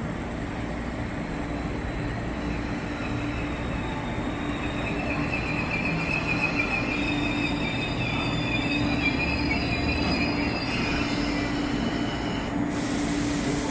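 MLR electric multiple unit train running into the platform with a steady low rumble and hum. A high wheel squeal comes in about five seconds in and fades out about eleven seconds in.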